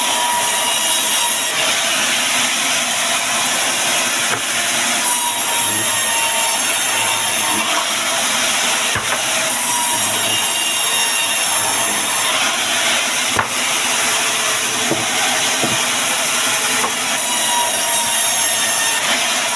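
Band sawmill blade cutting through wood: a steady, loud, hissing saw noise with a few brief clicks.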